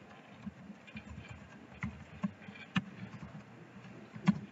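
Typing on a computer keyboard: scattered, irregular keystroke clicks, with a slightly louder one near the end.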